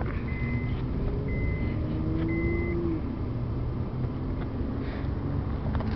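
Car cabin with a steady low engine and road rumble. An electronic chime beeps three times, about once a second, then stops.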